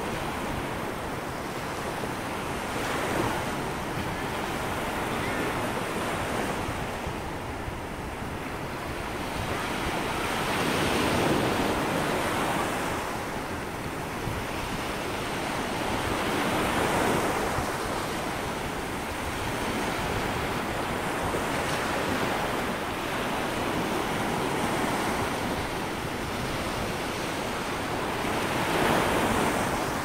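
Small surf on a sandy beach: low waves breaking and washing up the sand in a continuous rush that swells and fades every few seconds.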